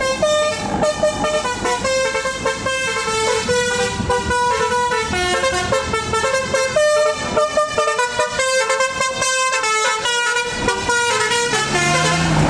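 Tour bus's 'telolet basuri' multi-tone horn playing a quick melody, one held note after another, stopping shortly before the end.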